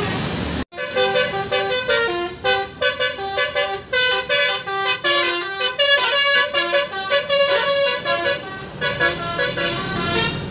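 Indonesian 'telolet basuri' musical bus horn, a multi-trumpet air horn, playing a quick melody of short notes that change pitch several times a second. The tune starts after a brief break in the sound about a second in.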